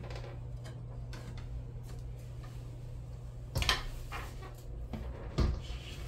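A steady low hum, with a few faint clicks and two sharp knocks a little under two seconds apart, the second the loudest.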